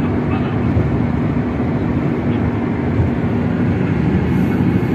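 Steady road and engine noise heard inside a moving taxi's cabin, a low rumble with a constant hum.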